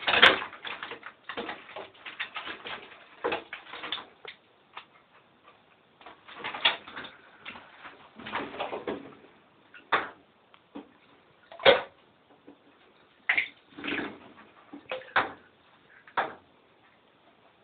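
Irregular knocks and clatters, with a few longer scuffling noises of about half a second each, as a pet mink plays with its fetch toys in water.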